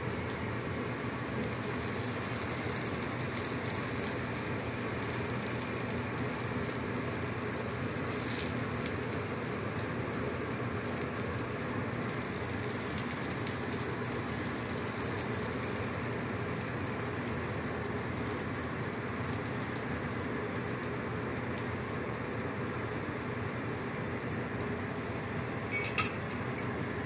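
Steady crackling sizzle of oil frying in a pan, over a steady low hum, with a single light click near the end.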